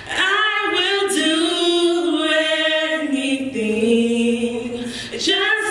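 Two women singing together into microphones without accompaniment, holding long notes that waver and slide between pitches.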